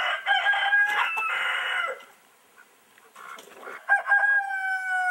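Roosters crowing twice: one long crow in the first two seconds, then another starting about four seconds in, ending on a long held note that sinks slightly in pitch.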